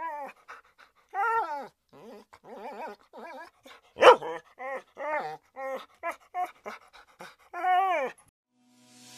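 A dog whining and yipping in a rapid run of short, high calls that rise and fall in pitch, with one louder, sharper cry about four seconds in. The calls stop a little after eight seconds in.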